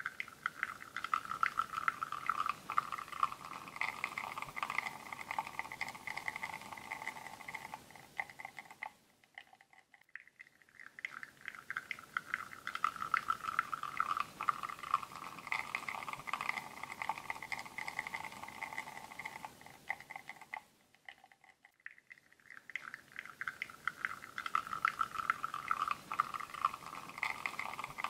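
Espresso shot pouring from a bottomless portafilter on a Linea Mini espresso machine: a steady crackling, sputtering trickle with a faint whine. It fades out briefly twice, about ten and twenty-one seconds in, and starts again each time.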